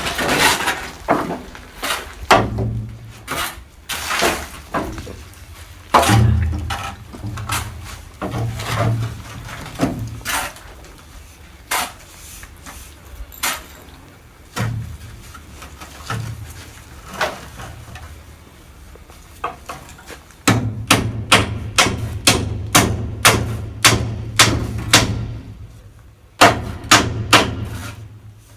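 Hammer blows: scattered knocks at first, then a steady run of about two strikes a second from about two-thirds of the way in, pausing briefly and starting again near the end.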